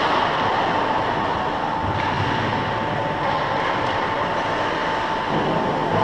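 Ice rink ambience: a steady mechanical hum and hiss with a constant high tone, no voices.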